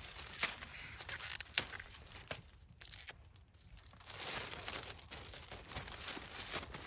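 Crinkling and tearing of handled corn: husk leaves being pulled and snapped off an ear of sweet corn, with a few sharp snaps in the first couple of seconds. From about four seconds in, a plastic bag rustles as the ear goes into it.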